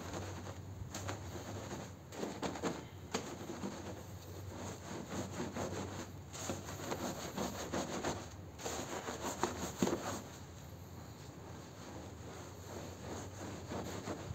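Stiff push-broom bristles scrubbing a soapy, wet rug on a tiled floor: repeated wet rubbing strokes with a few short pauses between them.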